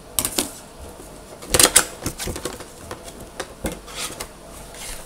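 Cardboard figure box being handled and opened: a string of sharp clicks and knocks from the cardboard and packaging, loudest in a quick cluster about a second and a half in.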